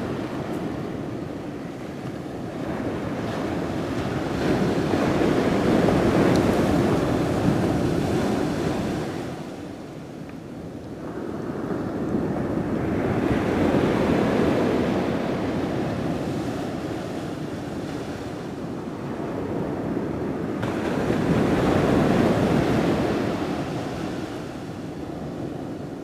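Ocean surf breaking on the beach, swelling and fading three times about eight seconds apart, with wind on the microphone.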